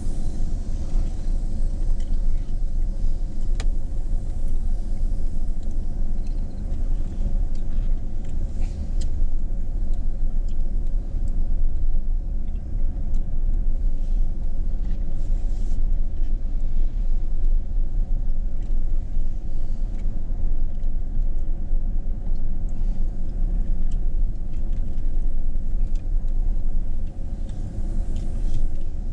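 Steady low mechanical rumble with a constant hum, running evenly throughout.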